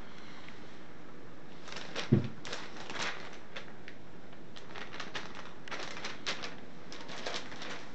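Paper ad flyers crinkling and rustling in short irregular bursts as a cat rolls and squirms on them, with one dull thump about two seconds in.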